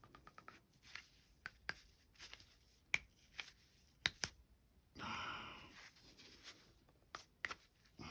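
Small sharp clicks and knocks from pistol parts and cleaning tools being handled during cleaning and oiling, with a brief rubbing or wiping sound about five seconds in.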